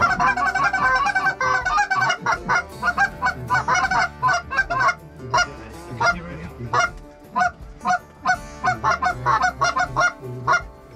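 A flock of geese honking, many calls overlapping at first, then separate short honks in quick runs.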